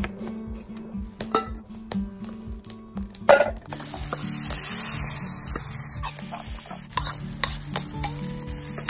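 A knife taps through boiled potatoes onto a wooden cutting board, with a sharp knock about three seconds in. Then butter sizzles steadily in a small camp frying pan over a wood-burning stove, and a wooden spatula clicks and scrapes against the pan as the contents are stirred.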